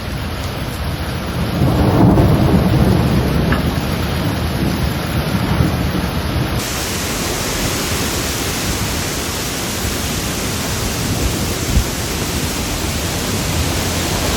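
Heavy rain falling steadily, with a roll of thunder rumbling from about a second and a half in until about six seconds.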